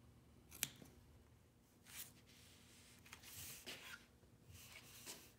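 Faint scissor snips and rustling of foam and fabric being trimmed along the edge of a dashboard crash pad. The sharpest click comes about half a second in, followed by a few softer snips and rustles.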